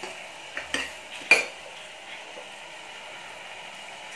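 Steel ladle clinking and scraping against the pressure cooker pot as tomatoes and onions are stirred, with one sharp clink about a second in. Beneath it the vegetables sizzle steadily in the oil.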